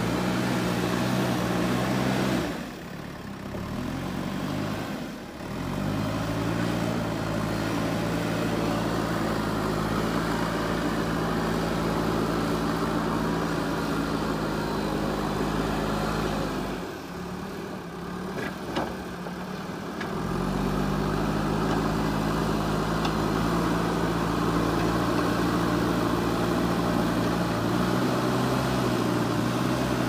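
JCB 3DX backhoe loader's diesel engine running steadily. The engine dips briefly a few times, around three and five seconds in and for a few seconds past the middle, then picks back up with a rising note.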